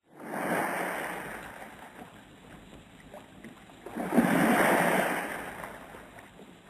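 Sea waves breaking and washing in: two swells of surf, the second, about four seconds in, the louder.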